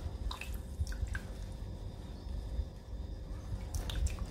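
Fresh lime juice squeezed by hand, dripping and trickling into a pot of broth in a few short splashes, with a small cluster of drips near the end. A low, steady rumble runs underneath.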